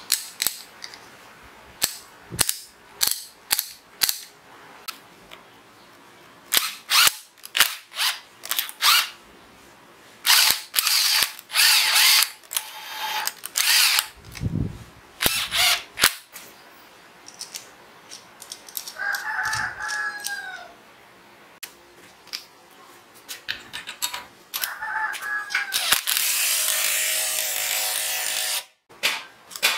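Ratchet of a homemade rivet-nut tool made from a bicycle freewheel clicking in uneven runs as it is turned by hand. Near the end an 18 V cordless impact driver spins the tool for about three seconds and stops abruptly.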